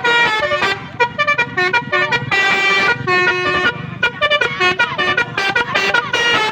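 Telolet basuri multi-tone musical horn on a Toyota Avanza playing a quick melody of short horn notes that jump from pitch to pitch.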